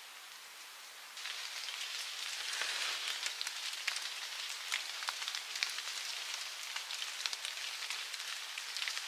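Rain falling, with many separate drops pattering and ticking over a steady hiss; it gets louder about a second in.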